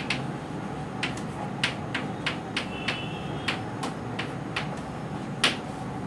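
Chalk tapping and scratching on a chalkboard as words are written: about a dozen sharp, irregular ticks, the loudest near the end, with a brief squeak about halfway through.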